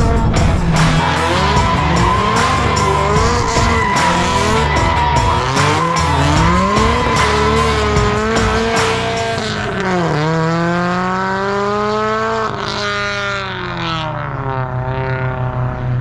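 Turbocharged Toyota 86 flat-four engine revving hard, its pitch swinging up and down, with a steady high-pitched whine over it. About ten seconds in it climbs steadily under acceleration, drops briefly as it shifts, climbs again and eases off near the end.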